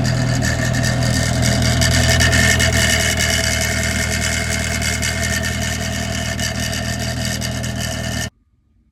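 Corvette V8 running steadily, with its transmission and torque tube turning. The sound cuts off abruptly a little over eight seconds in.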